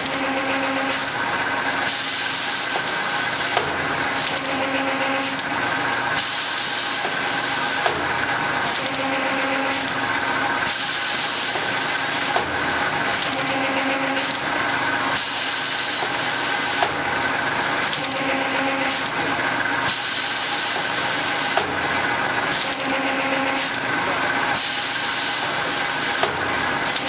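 Paper tube recutter running and cutting paper tubes: a steady machine hiss that swells and drops every second or two, with a faint hum coming and going and a sharp click about every four and a half seconds.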